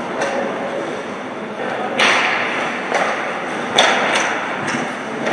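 Ice hockey play in an arena rink: sharp clacks and thuds of sticks and puck, about five of them starting about two seconds in, each echoing through the hall over steady background noise.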